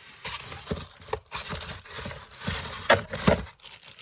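Rustling and scraping of packaging while ceiling fan parts are handled and unpacked, with two sharp knocks about three seconds in.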